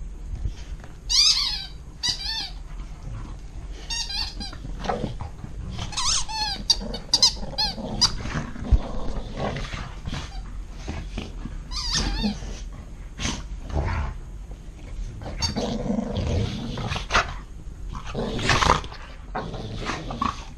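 Plush hedgehog squeaky toy squeaked over and over in quick runs of high, wavering squeaks as an Alaskan malamute and a pit bull tug at it, with the dogs' low play growling between the runs.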